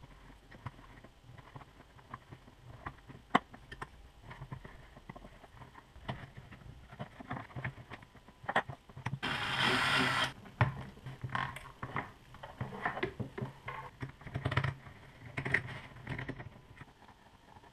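Small clicks, scrapes and rustles of hand tools working on an old leather sheath: an awl and a knife picking out the old stitching and the thread being pulled free. About halfway through comes a louder rasp lasting about a second.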